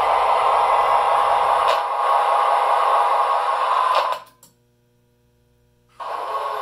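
MTH O-scale model diesel locomotive (Western Maryland SD40-2 with ProtoSound 2) running on track, its onboard speaker playing a steady diesel engine sound over motor noise. The sound drops out suddenly about four seconds in and comes back about two seconds later.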